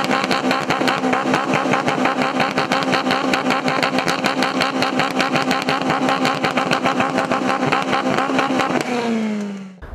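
VAZ-2108 four-cylinder engine revved through a tuned twin-tip exhaust, very loud: held steady at high revs with a fast, even pulsing, then the revs drop away and it stops near the end.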